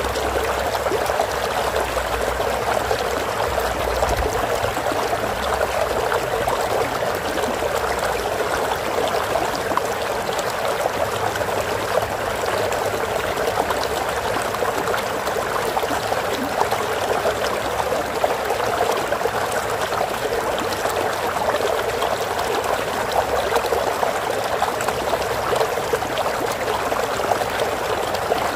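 Flowing stream: running water babbling and trickling steadily.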